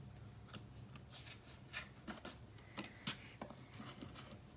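Faint, scattered clicks and light rustles of oracle cards being handled: one card put aside and the next picked up and held out.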